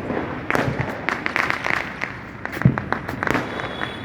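Festival firecrackers and fireworks going off: many sharp bangs and crackles in quick, irregular succession, with one heavier bang about two and a half seconds in.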